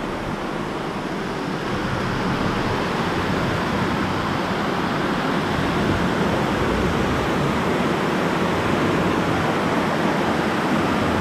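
Steady rushing and splashing of water from the jets and gooseneck spouts of an indoor hydromassage pool. It grows louder about two seconds in.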